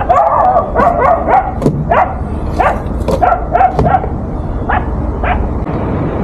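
Dogs barking and yelping in a rapid run of short calls that stops about five and a half seconds in, over a steady low engine rumble.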